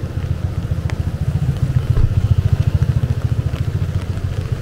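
A vehicle engine idling close by: a low rumble with a rapid, even pulse that swells a little in the middle.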